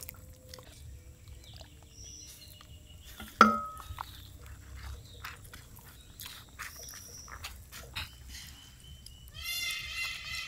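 A goat bleating in a long, wavering call that starts near the end, over faint clicks of hands mixing rice and curry.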